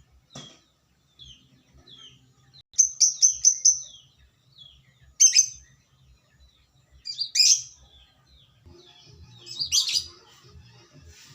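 Lovebird calling in short, sharp, high chirps, some single and one quick run of about five. Louder shrill bursts come around the middle and again near the end.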